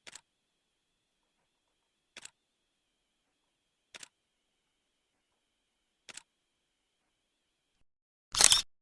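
Camera shutter sound effects: four quiet, short shutter clicks about two seconds apart over a faint high steady whine, then a much louder, longer shutter release near the end.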